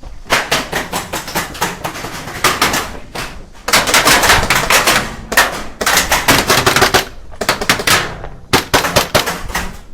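Airsoft guns firing on full auto: several rapid bursts of sharp clicking shots, each lasting one to three seconds, with short pauses between them.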